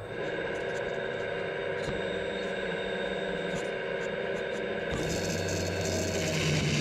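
RC model excavator's hydraulic pump running with a steady whine as the grapple saw head is positioned on the tree trunk; about five seconds in, a deeper hum and a hiss join it.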